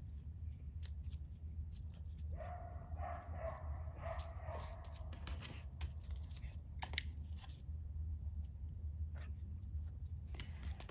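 A small dog barks in frustration: one drawn-out, wavering vocal lasting about two and a half seconds, starting about two seconds in. It is the frustration of an extinction burst, when a behaviour that used to be rewarded no longer is.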